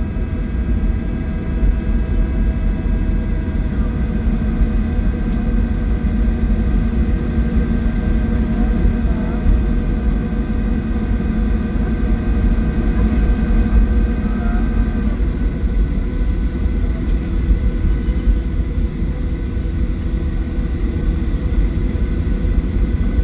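Boeing 737-800 cabin noise while taxiing: a steady low rumble with the whine of its CFM56 engines at idle. A set of steady tones in the whine drops away about two-thirds of the way through, leaving the rumble.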